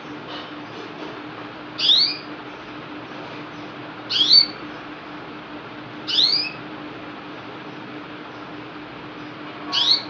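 Domestic canary giving four short, rising chirp calls, spaced about two seconds apart, over a steady low hum.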